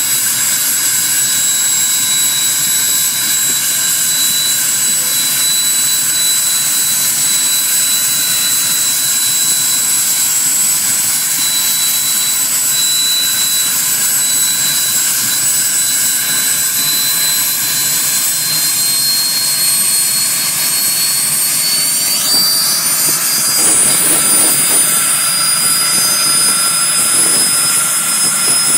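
Learjet 25's number 1 engine, a General Electric CJ610 turbojet, running on the ground with a steady high-pitched turbine whine over a jet rush. The whine climbs slowly through the second half and rises more sharply about two-thirds of the way in, getting a little louder as the engine speeds up.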